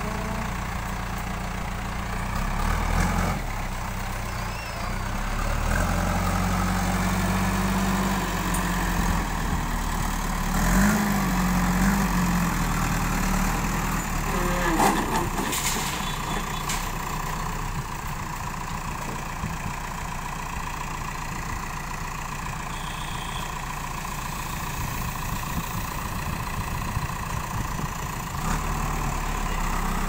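JCB backhoe loader's diesel engine running, revving up and settling back several times as the loader bucket is worked, with a brief clatter about halfway through.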